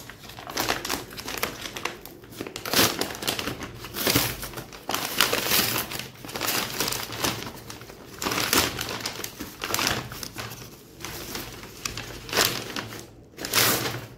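Heavy brown paper mailer bag crinkling and rustling in irregular bursts as hands squeeze it and pull it open off the cardboard box inside.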